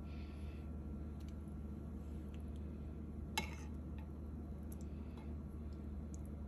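A metal spoon clinks once against a ceramic soup bowl about three and a half seconds in, with a brief ring, amid a few fainter ticks and a steady low hum.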